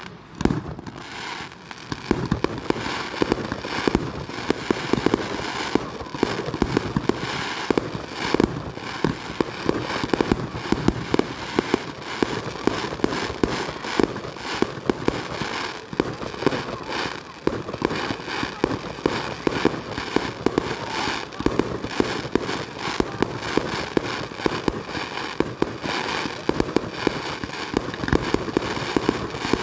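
Fireworks display: a fast, near-continuous run of bangs and crackles from aerial shells bursting overhead, with brief lulls near the start and about halfway through.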